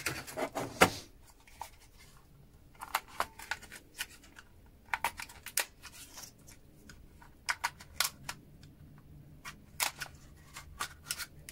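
Irregular small clicks, snaps and scrapes of a hand tool prying apart a plastic relay switch to get its little stainless steel bar out.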